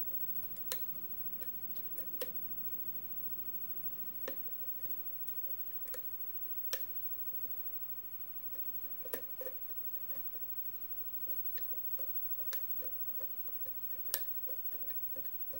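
Lock pick working the pin stacks of a Schlage key-in-knob cylinder under tension: a dozen or so sharp, irregular small metallic clicks as pins are lifted and set.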